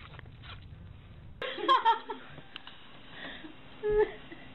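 Low wind rumble on the microphone with a few faint light taps. About a second and a half in, people laugh and giggle in a room, with a short high squeal near the end.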